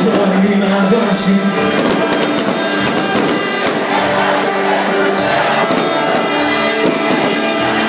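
Loud live band music playing in a concert hall, with crowd noise underneath.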